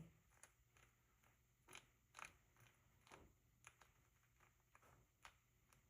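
Faint, scattered clicks and light taps of small RC differential parts being handled and fitted into the diff case, about a dozen in all.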